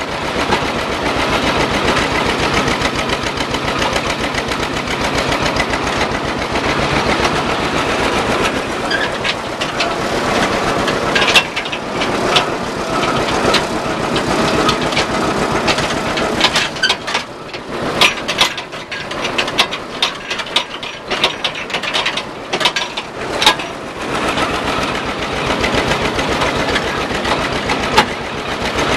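A 1953 John Deere 70's two-cylinder engine running with an even, rapid beat. From a bit past halfway, the engine sound drops back for several seconds and sharp clanks and rattles break in, then the steady beat returns near the end.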